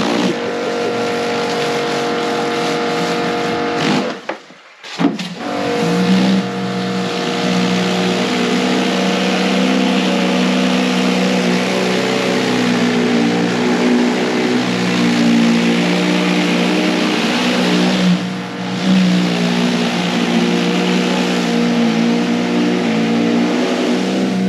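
Pressure washer running with water spraying: a steady motor drone under a broad hiss. It cuts out for about a second around four seconds in, then starts again and runs on steadily.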